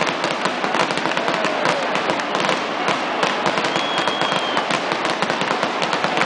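Fireworks grand finale: aerial shells bursting in a dense, continuous barrage of pops and crackle, too fast to count. A brief high whistle rises over it about four seconds in.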